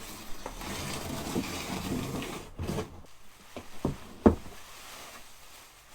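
Handling and unpacking noises: rustling, then scattered knocks and taps as a newly delivered carbon-fibre splitter is checked over, with one sharp knock a little past four seconds in.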